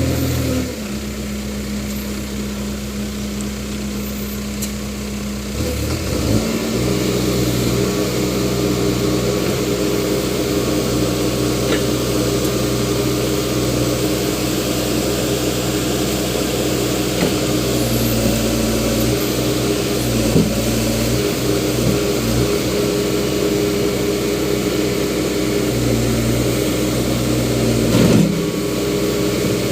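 Case Super M backhoe loader's diesel engine running steadily, stepping up to higher revs about six seconds in and holding there, with a single knock near the end.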